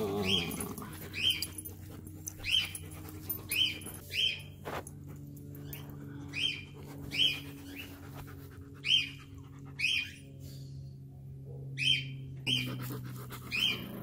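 Small dog whining in short, high-pitched cries, about one a second and often in pairs, over a faint steady low hum.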